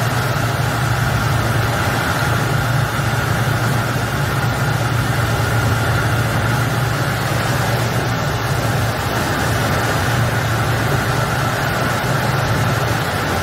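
Patrol boat's engine running steadily, a low drone with a steady hiss of wind and sea over it.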